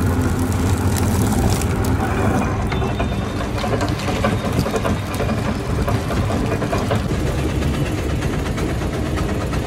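Sugarcane crusher machine running steadily: a low mechanical hum with many small clicks and clatter.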